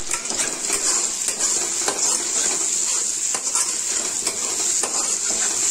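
Spice masala of onion, tomato and ginger-garlic paste sizzling as it fries in oil in a steel kadhai, while a metal spatula stirs it and scrapes against the pan in short irregular strokes.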